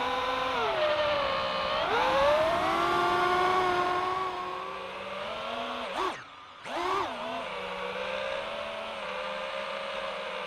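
Brushless motors and propellers of an iFlight Titan DC5 FPV quadcopter whining, the pitch rising and falling with throttle. About six seconds in the whine drops out for a moment as the throttle is cut, then picks back up.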